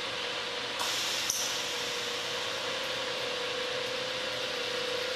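AutoDrill two-axis drilling machine running steadily with a mid-pitched hum over hiss. About a second in there is a short hissing burst ending with a sharp click.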